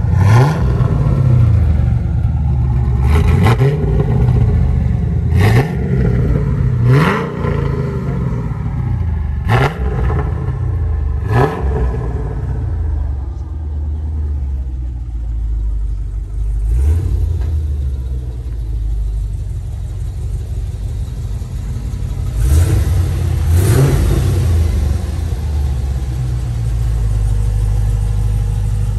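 Holden Commodore VF SS 6.0-litre V8 heard at the exhaust tips, revved in short blips about six times in the first twelve seconds, each rising and dropping back quickly. It then idles with a steady low burble, is blipped twice more a little past twenty seconds in, and settles back to idle.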